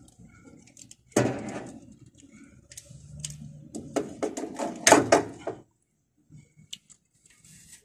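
Handling noise as wires and crimp terminal lugs are sorted by hand: irregular rustling and sharp clicks, loudest about a second in and in a quick cluster around five seconds. It stops abruptly after about five and a half seconds.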